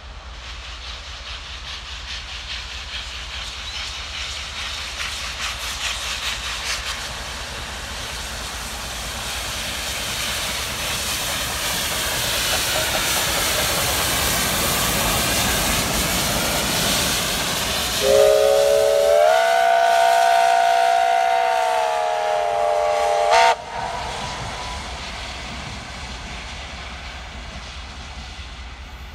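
P36-class steam locomotive passing with a train: its running noise and steam hiss build as it approaches. Then its steam whistle sounds one long chord of several notes for about five seconds and cuts off sharply. The coaches' running noise fades away after it.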